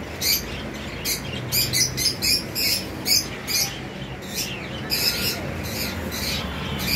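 Caged budgerigars chirping and squawking: a rapid run of short, high, sharp calls that thins out in the second half.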